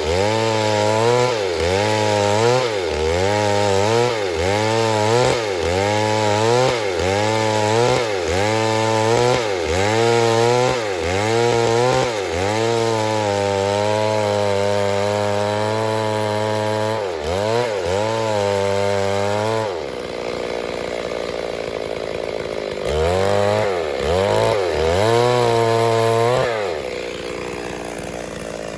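Stihl MS 382 two-stroke chainsaw running at high revs while cutting wood, its pitch dipping and recovering in a steady rhythm about once every 0.7 s as the chain loads in the cut. About two-thirds of the way through the engine note drops away to a hiss, comes back with the same dipping rhythm for a few seconds, then fades out again near the end.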